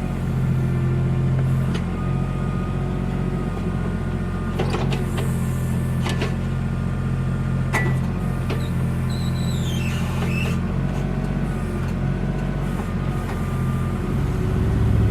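Backhoe's engine running steadily, with a few knocks and a short falling squeak about halfway through.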